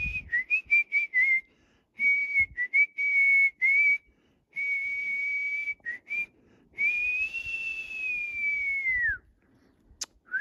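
A person whistling to call a deer: a run of short, broken whistled notes, then longer held notes at one high pitch, the last and longest sliding down as it ends. A single sharp click near the end.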